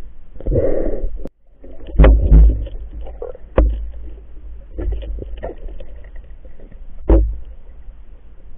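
Muffled underwater sound picked up by a camera in a waterproof housing: a low rumble of moving water with sharp knocks and heavy thuds about two, three and a half, and seven seconds in, as the diver and gear bump about.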